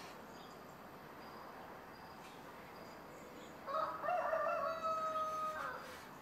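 A single drawn-out bird call, about two seconds long, starting about three and a half seconds in: a few broken notes, then one held note that drops away at the end.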